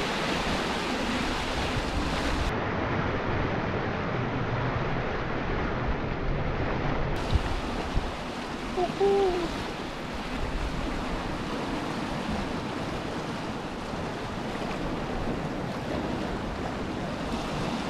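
Sea swell washing and breaking over shore rocks, a steady rush of surf.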